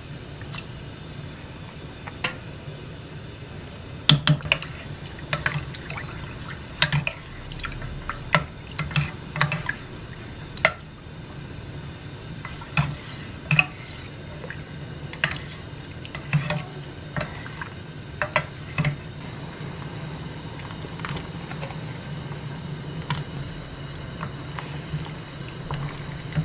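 A wooden spoon stirring soybean paste (doenjang) into water in a pot, the water sloshing, with irregular sharp knocks and scrapes of the spoon against the pot, most of them from about four seconds in until about twenty seconds in.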